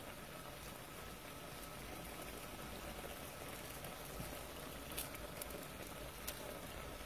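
Diced swordfish simmering in wine and oil in a frying pan: a faint, steady bubbling hiss, with a couple of sharp ticks near the end.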